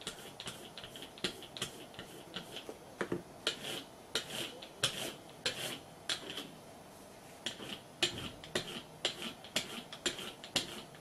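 Hand-held brayer roller worked back and forth over an ink pad and then rolled across card, giving a run of irregular short clicks.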